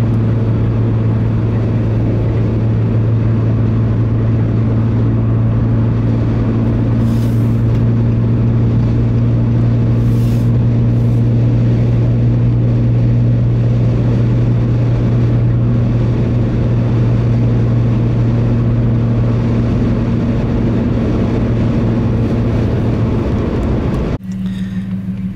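Steady drone of a car cruising at freeway speed, heard from inside the cabin: an even low engine hum over road and tyre noise. It cuts off abruptly near the end.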